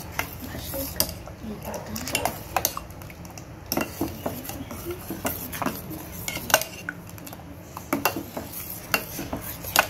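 Steel spoon stirring ragi porridge in a steel pot on the stove, scraping and clinking irregularly against the pot's sides and bottom, with one sharper clink about six and a half seconds in. A steady low hum runs underneath.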